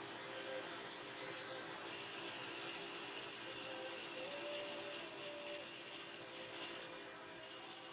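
A hand tool scraping and rubbing against a workpiece in uneven strokes, starting about half a second in, with a faint steady high whine above it.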